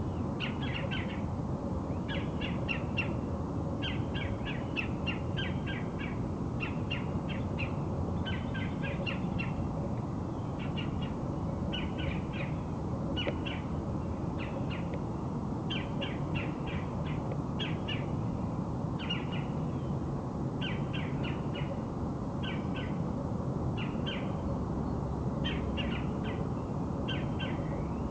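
Birds calling in quick clusters of short, sharp notes, about one cluster a second, over a steady low background rumble.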